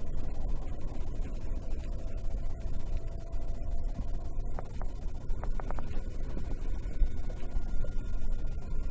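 Gusty wind buffeting the microphone: a steady, uneven low rumble.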